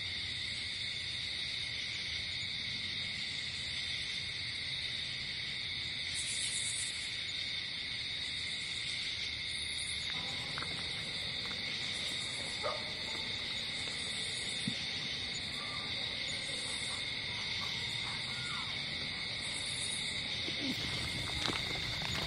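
Steady night chorus of insects chirring in a constant high pitch, with a few faint knocks in the second half.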